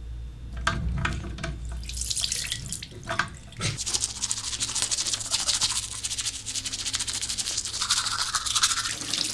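Teeth being brushed hard with a manual toothbrush: fast, rhythmic scrubbing that starts about four seconds in, after a few small clicks and knocks of handling at the sink.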